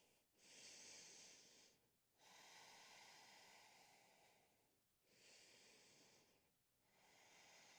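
Near silence with faint, slow breathing: about four long, soft breaths, each a couple of seconds, with short pauses between them.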